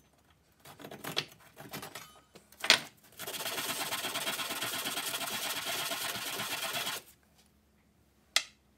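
Hand saw cutting through a small turned wooden blank: a few uneven strokes and a sharp knock about three seconds in, then about four seconds of steady, fast rasping that stops abruptly. A single sharp click comes near the end.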